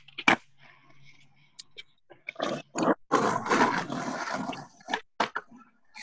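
A skateboard cracks sharply against concrete once, then a person lets out a long, loud rough yell or groan, with a couple of board knocks near the end.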